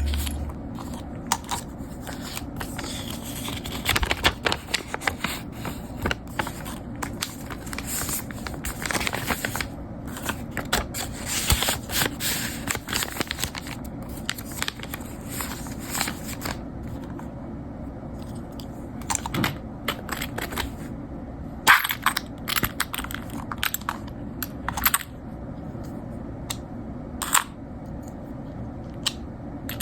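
Close handling noises: paper or plastic rustling and crinkling, with many short clicks and taps as small objects are picked up and set down.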